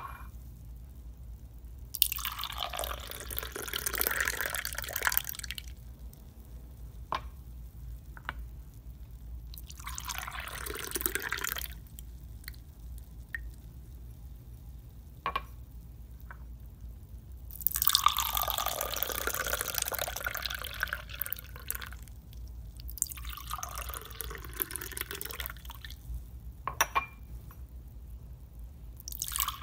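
Wine glugging from a bottle into a glass wine glass in several separate pours of a few seconds each, with short pauses between them. A few light clinks of glass fall in the pauses.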